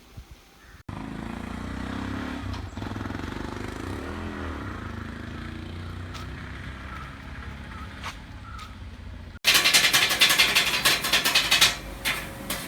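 A vehicle engine running steadily, then, about nine seconds in, a much louder rapid rattling clatter that eases off near the end.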